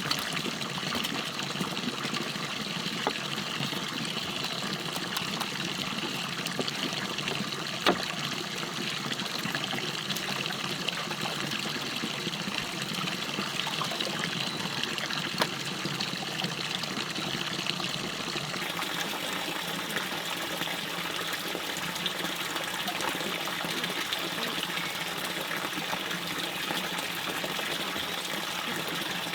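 Forest stream water trickling and running steadily, with a few sharp clicks, the clearest about eight seconds in and again halfway through.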